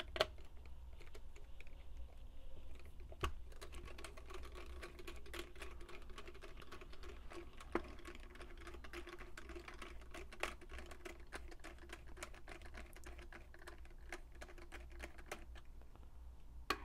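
Screwdriver loosening a screw in the plastic shell of a Mission TPR launcher: a long run of small, irregular clicks and ticks, with a few louder clicks now and then.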